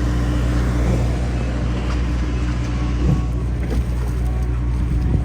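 A boat's engine running steadily, a constant low hum heard on board, with a few faint knocks over it.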